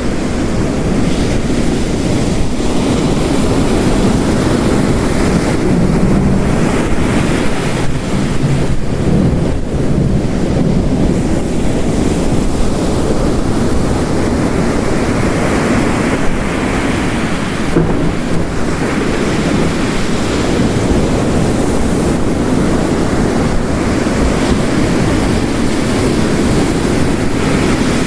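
Ocean waves crashing on the coast mixed with heavy rain: a steady, dense wash of water noise that swells and eases slowly.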